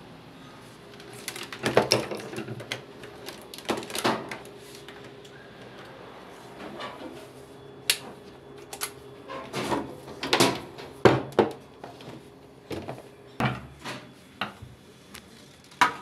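Irregular knocks, clacks and clicks from hands handling a washing machine, its mains plug and its white top panel, loudest around two, four and ten to eleven seconds in and just before the end.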